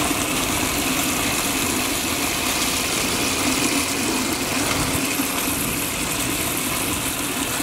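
MIRANO PS-150BIT 400-watt automatic water pump running steadily under load, with water gushing from two open taps and splashing down.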